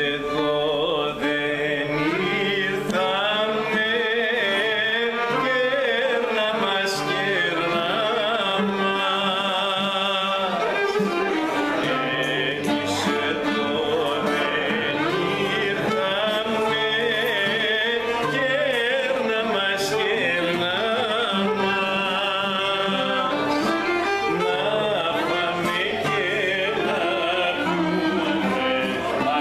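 Small Greek folk ensemble of violin, kanonaki and acoustic guitar playing a song in a Middle Eastern–tinged style, with a man singing over it.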